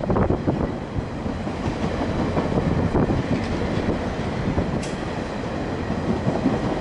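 Train cars rolling past at close range, the wheels rumbling and clattering on the rails. There is a brief sharp high click about five seconds in.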